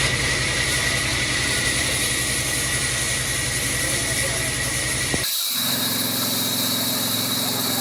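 Sawmill machinery running steadily, with a low engine-like throb under a high whine. About five seconds in, the sound cuts abruptly to a different machine noise with a thinner low end and a higher whine.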